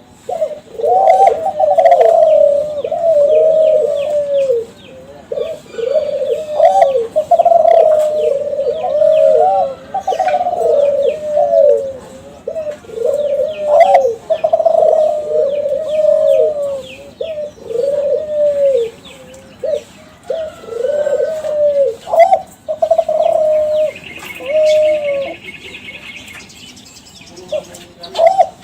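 Kelantan-strain spotted dove (derkuku/tekukur) cooing over and over, a long string of arching coos about a second apart. Faint high chirps sound behind it, with a short high trill near the end.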